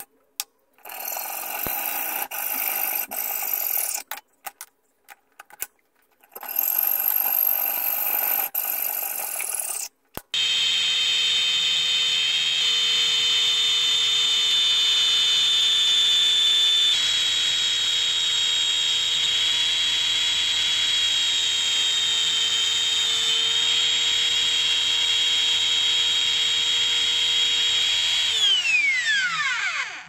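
Hand hacksaw rasping through cast aluminum in several short stretches. About ten seconds in, a Bosch PBS 7 A belt sander starts and runs steadily with a high whine while an aluminum plaque is ground on its belt. Near the end the sander is switched off and winds down with a falling whine.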